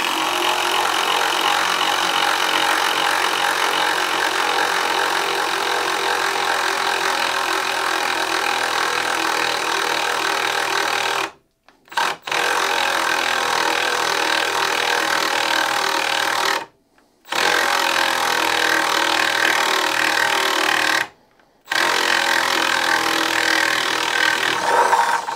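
Milwaukee M12 Fuel Surge hydraulic impact driver boring a 3/4-inch spade bit through pressure-treated 4x4 lumber, running steadily at full trigger. It cuts out briefly three times under the heavy load: once about halfway through, then twice more a few seconds apart. The load is heavier than this tool is made for.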